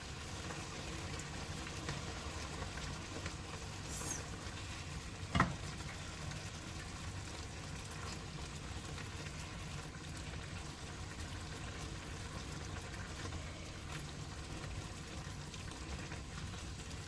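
Parrot fish simmering in a pot of brown-stew gravy: a steady sizzle and bubble. One sharp knock about five seconds in.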